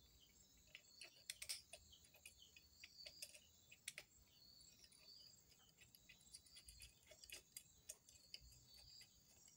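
Faint, irregular small clicks and taps of a nut being fitted by hand to the motor mount on a sewing machine. Crickets trill steadily behind them.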